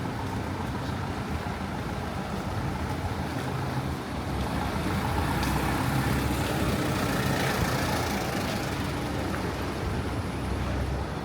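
Road traffic on a city street, with a large vehicle such as a truck or bus passing, its low rumble growing louder from about four seconds in and easing off about four seconds later.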